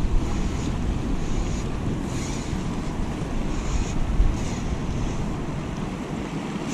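Rushing water of a river running high and fast with spring runoff, with wind buffeting the microphone.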